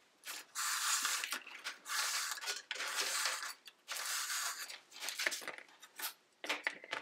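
Reed lashing pulled through the woven rim of a basket, rubbing against the reed in a series of rasping pulls: about four long strokes roughly a second apart, then a few shorter scrapes near the end.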